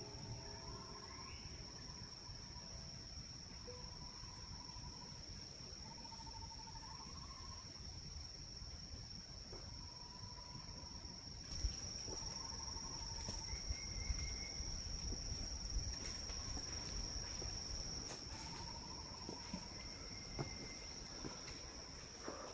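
Forest insects chirring steadily on one high pitch, with short warbled calls of another animal repeating every second or two. From about halfway, scattered faint clicks and knocks join in.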